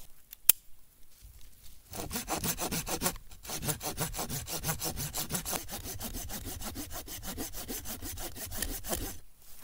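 Folding hand saw cutting through dense, dead wood at its rooted base: quick, even back-and-forth strokes that start about two seconds in, pause briefly a little later, and stop shortly before the end. A single sharp click comes near the start.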